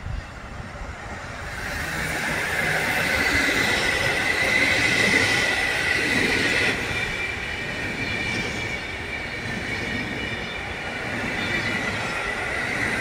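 Electric-locomotive-hauled passenger train passing close by, a loud rolling rumble of the coaches over the rails with a steady high-pitched squeal running through it. It grows louder over the first few seconds as the locomotive draws level.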